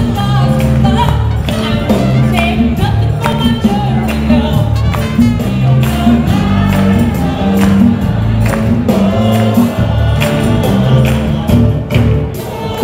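Live worship music: a band plays an upbeat song with a driving bass line and regular percussion, while many voices sing along.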